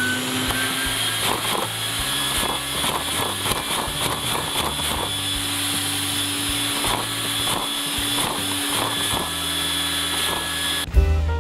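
Vacuum cleaner running at full suction, its hose drawing air through a LEGO vacuum engine with round pistons, while the engine's plastic parts clatter and knock unevenly. The vacuum cuts off near the end.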